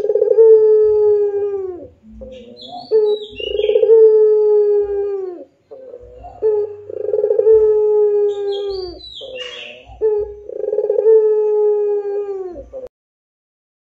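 Ringneck dove (Barbary dove) cooing: a short note followed by a long, deep coo that drops in pitch at its end, four times in a row. Two brief high chirps come between the coos.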